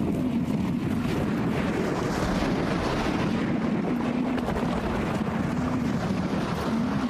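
American bison bulls bellowing in the rut: a continuous low, wavering rumble over a rushing noise.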